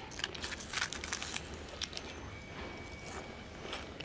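Paper wrapper and thin plastic bag crinkling as they are handled, a quick run of rustles in the first second and a half, then a few single crinkles.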